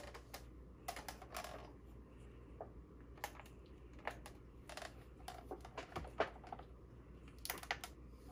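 Faint, irregular light plastic clicks and taps as a digital kitchen scale is handled, set down and its buttons pressed, with a small cluster of clicks near the end.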